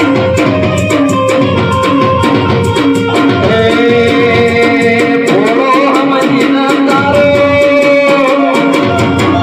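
Gujarati devotional folk music from a Meldi Maa ramel: fast, steady rhythmic percussion with a held melody line over it that rises in pitch twice, about halfway through and near the end.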